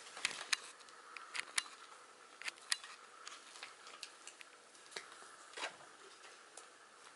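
Six-week-old puppy playing and mouthing the rope edge of a fabric basket on carpet, making quiet, irregular small clicks and scuffs over a faint steady hum.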